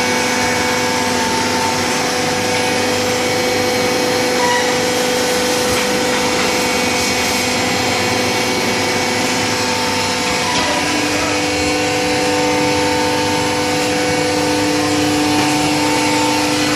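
Hydraulic baler running: a steady machine hum with several steady whining tones from its hydraulic pump and motor, and a further tone joining about ten seconds in.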